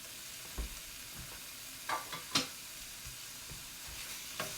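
Minced pork sizzling in a hot pan as it browns and renders its fat, a steady hiss broken by a few sharp knocks, the loudest about two and a half seconds in.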